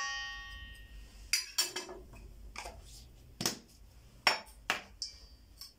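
A metal spoon striking a stainless steel mixing bowl: the bowl rings at the start and fades out over about a second and a half. After that come several separate light clinks and knocks of utensils against the bowl and dishes.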